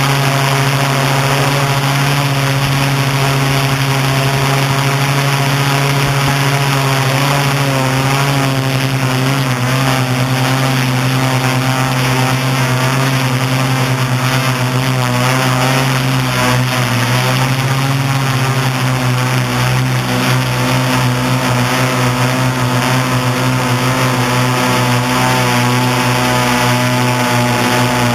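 Octocopter's eight electric motors and propellers buzzing steadily in flight, heard up close from the craft's own camera. A strong low hum runs throughout, with higher tones that waver up and down as the motor speeds change.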